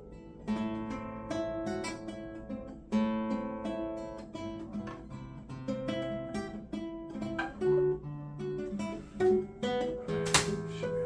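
Acoustic guitar played by hand: a run of picked notes and chords one after another, with a sharp strummed accent about ten seconds in. A player with essential tremor is testing his hand control under new deep brain stimulation settings and gets through the passage cleanly.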